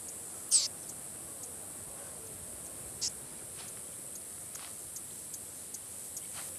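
Outdoor ambience with a steady high insect hiss and two short bird calls: a sharply falling whistle about half a second in, and a shorter high call around three seconds in.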